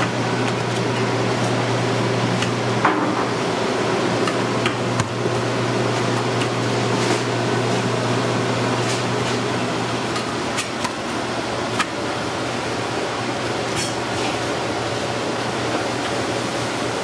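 Steady low hum and fan noise of a commercial kitchen, with scattered short knocks and light clatter.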